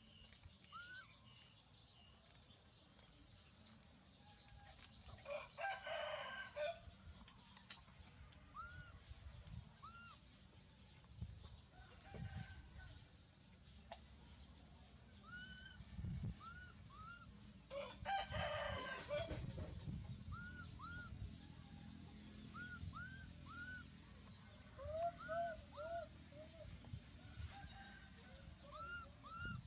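A rooster crowing twice, about five seconds in and again about eighteen seconds in, with many short high chirps between the crows.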